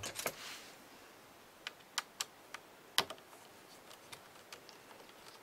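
Scattered light clicks and taps from hands and tools handling a Brother knitting-machine carriage, about seven distinct ones with the loudest about three seconds in, then fainter ticks.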